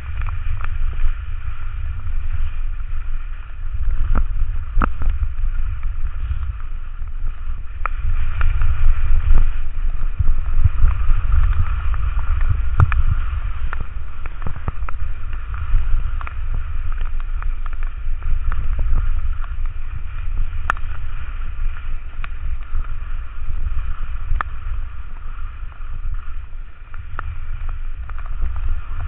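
Wind buffeting an action camera's microphone during a ski run, a heavy low rumble that swells and eases, with a steady hiss and scattered sharp clicks.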